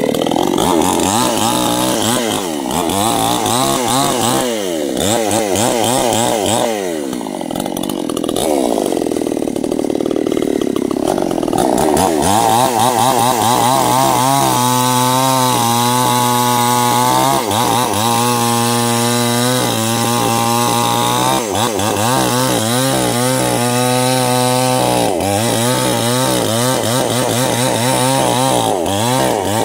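Stihl two-stroke chainsaw cutting into a large sengon trunk. Its engine pitch rises and falls through the first half, then holds steady for several seconds at a time with brief dips between.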